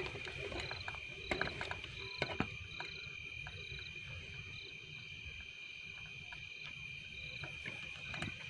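Crickets at night: a steady high-pitched trill with a short chirp repeating a little more than once a second over it. A few sharp clicks and crackles come through, loudest about one and two seconds in.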